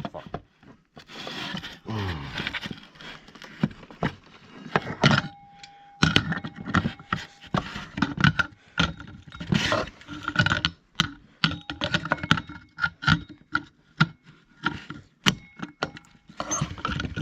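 Pliers and a wrench clicking and scraping against metal while working a small bolt loose on a Wheelock TB-593 Telbell alarm bell. A faint ringing tone sounds now and then.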